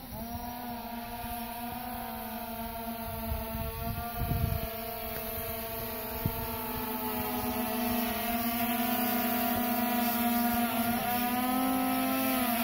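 DJI Phantom 4 quadcopter in flight, its propellers giving a steady multi-tone hum that slowly gets louder, with the pitch wavering near the end as the motors change speed.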